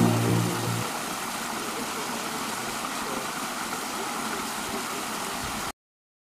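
Steady rush of a small waterfall and the stream cascading over rocks below it, cutting off suddenly near the end.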